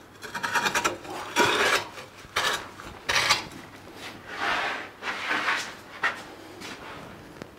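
Steel exhaust tube being pushed and twisted onto the end of a car exhaust downpipe held in a vice: a series of about seven metal-on-metal scraping strokes as the tube slides over the pipe.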